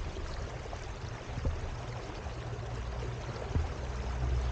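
Water rushing along the hull of a small electric boat underway, over a steady low rumble that grows louder near the end, with a few faint knocks.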